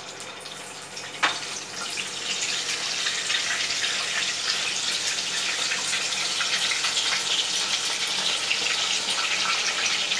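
Batter-coated chicken drumstick deep-frying in hot oil in a cast-iron pot: a steady, hissing sizzle that builds up over the first couple of seconds and then holds. A single sharp click comes about a second in.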